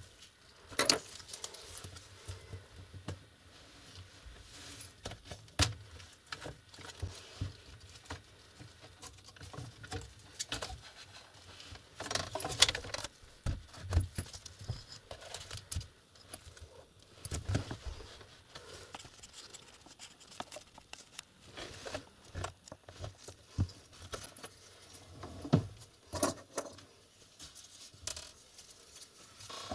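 Irregular clicks, taps and light rustles of gloved hands handling a laptop's plastic case and LCD screen panel, with a few sharper knocks now and then.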